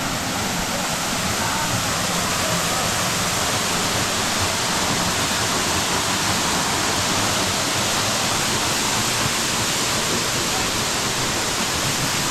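Waterfall: falling water rushing in a steady, even roar of noise.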